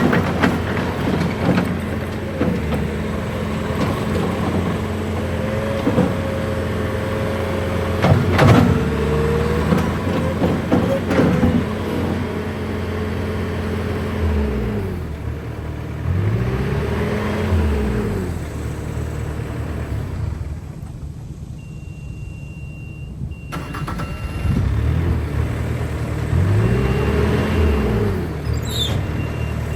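Bobcat T630 skid steer's diesel engine running while the machine is worked. Its pitch dips and recovers twice in the second half, as under load, with a sharp clank about eight seconds in. The engine drops back about two-thirds of the way through, and a backup alarm beeps intermittently near the end.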